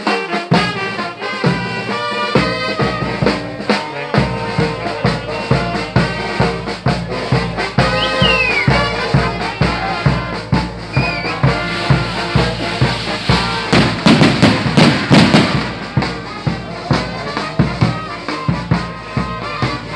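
Small street brass band of saxophones and trumpet with a bass drum, playing a tune over a steady drum beat. About 14 s in there is a louder, noisy stretch of roughly a second and a half.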